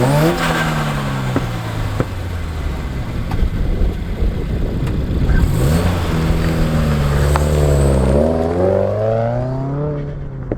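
Subaru WRX turbocharged flat-four engine driving under power, its revs climbing and dropping several times as it accelerates and eases off.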